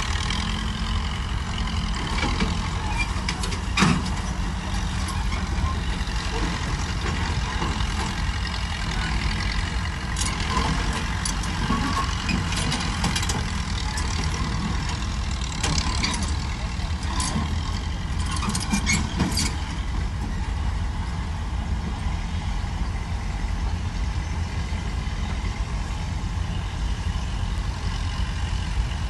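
Diesel engines of heavy earthmoving machinery running steadily, with occasional metallic knocks and clanks, one loud knock about four seconds in.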